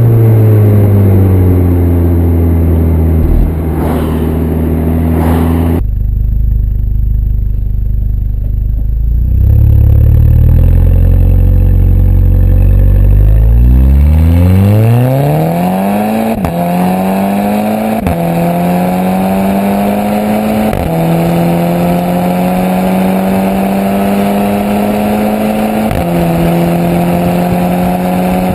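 Exhaust of a Volkswagen Golf VI R's turbocharged 2.0-litre four-cylinder at the tailpipes, fitted with a 200-cell metal-catalyst downpipe, straight mid-pipe and stock rear muffler. The engine note first falls as the car slows, then runs low and steady. About halfway through it revs up hard under full acceleration, dropping briefly in pitch at each of four upshifts.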